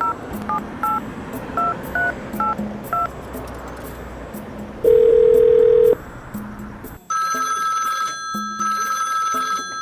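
Touch-tone telephone dialling: seven short dual-tone keypad beeps in quick succession, then a steady tone lasting about a second. From about seven seconds in a telephone rings with a high electronic ring in two long bursts. Quiet background music underneath.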